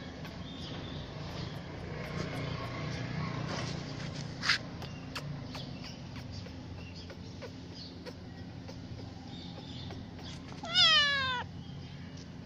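A kitten gives a single meow near the end, one call falling in pitch. A sharp click comes about four seconds in, over a steady low background hum.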